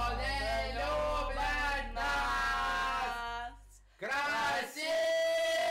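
Young voices singing a song together, with a short break about three and a half seconds in before the singing resumes on a long held note.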